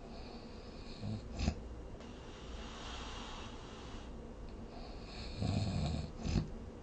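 A sleeping person snoring: two snores about four seconds apart, each ending in a short sharp burst, over a steady background hiss.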